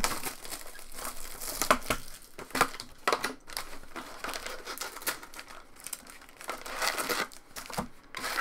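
Trading card packs in their wrappers crinkling and rustling as they are handled and lifted out of an opened cardboard hobby box, irregular, with a few sharper snaps.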